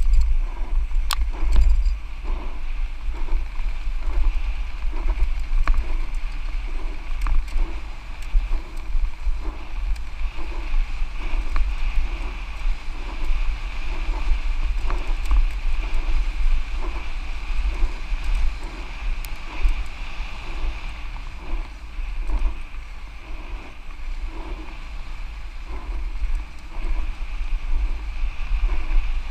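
Santa Cruz Nomad mountain bike ridden fast down a dirt trail: heavy wind buffeting on the microphone over tyre noise on dirt, with scattered sharp clicks and knocks from the bike over rough ground and a regular pulse about twice a second.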